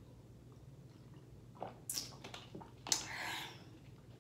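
Handling sounds at the table: a few light clicks and knocks from a plastic water bottle and a spoon against a glass baking dish, with a short rustling hiss about three seconds in.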